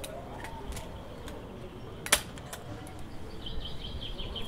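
Birds calling: a low rising coo at the start and a rapid high twittering near the end, with one sharp click about two seconds in.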